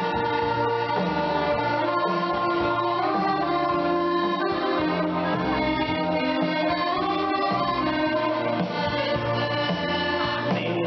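Accordion playing a dance tune, with bass notes changing in a steady rhythm underneath.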